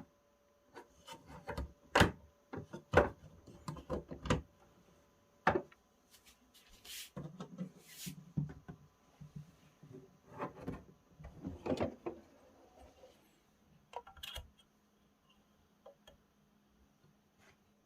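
Olivetti Valentine portable typewriter being handled and worked: irregular knocks and clicks of its plastic body and mechanism, with two short rasping rubs about seven and eight seconds in. The clicks thin out in the last few seconds.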